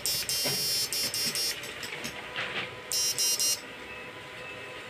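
Electronic fish shocker firing into a halogen lamp load: its high-voltage inverter gives a high-pitched electrical buzz in rapid pulses, one long run of pulses at the start and a short group of three about three seconds in.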